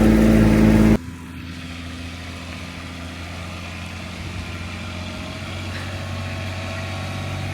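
Vehicle engine running steadily. A loud drone drops abruptly to a quieter, even hum about a second in, and the hum slowly grows a little louder.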